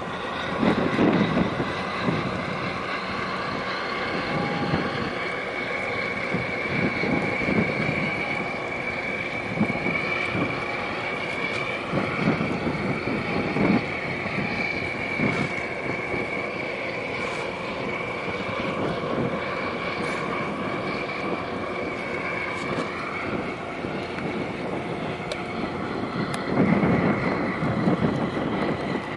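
A boat's engine running steadily with a high, slightly wavering whine. Wind buffets the microphone in irregular gusts.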